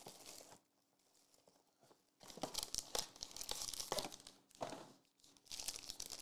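Foil trading-card pack crinkling and being torn open, in irregular crackly rustles that begin about two seconds in after a short stretch of near silence.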